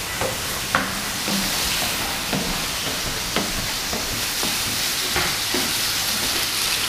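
Food frying in a pan on a gas stove: a steady sizzle that grows louder about a second in and again near the end, with a few short knocks.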